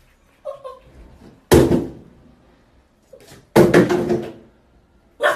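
Puppy's paws banging against the side of a bathtub: two loud thumps about a second and a half apart, then a shorter one near the end.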